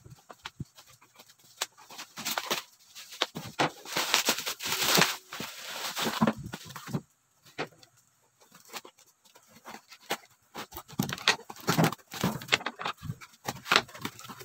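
Plastic mailer wrapping crinkling and tearing as it is stripped off a cardboard box, then the cardboard box being handled and its flaps pulled open, with scattered rustles, scrapes and taps. The handling pauses briefly about halfway through.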